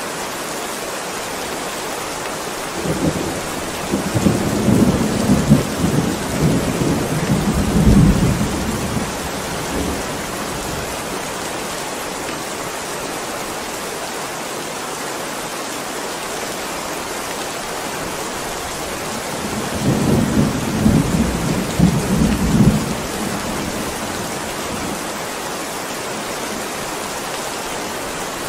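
Heavy rain falling steadily, with two rolls of low rumbling thunder: a long one starting a few seconds in and a shorter one about two-thirds of the way through.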